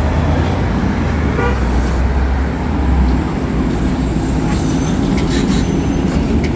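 City bus pulling in alongside at the stop, its engine a deep rumble that eases off about three seconds in, with road traffic behind it and a few short clicks or hisses near the end.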